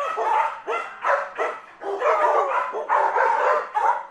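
Dog barking over and over in short, pitched barks, about two or three a second.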